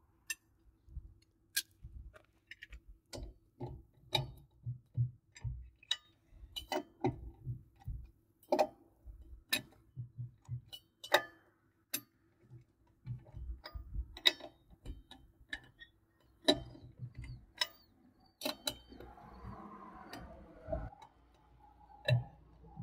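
Irregular metal clicks and clinks of a socket and breaker bar on a travel trailer's wheel lug nuts as they are cracked loose one after another.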